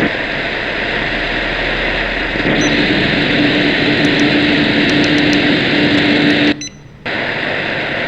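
Shortwave radio receiver hiss and static with no programme audible: a steady rushing noise, joined by a low steady hum about two and a half seconds in. The noise drops away sharply for about half a second, some six and a half seconds in.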